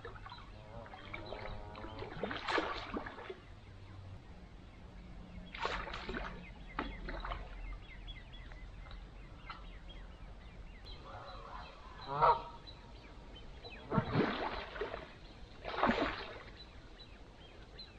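Geese honking on the lake in several separate bouts of calls, the loudest in the second half.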